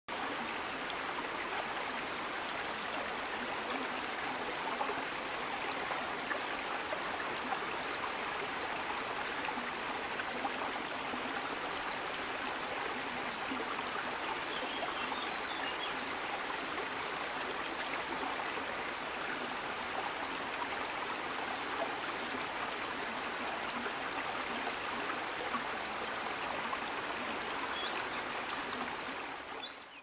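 Stream water running in a steady rush and trickle, with a high, thin downward note repeated about twice a second over it. Both fade out at the end.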